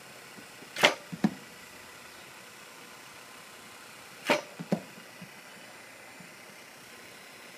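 Catcher's blocking drill: twice, about three and a half seconds apart, a sharp smack as a thrown baseball is blocked in the dirt by a catcher in full gear, each followed by a lighter knock within half a second.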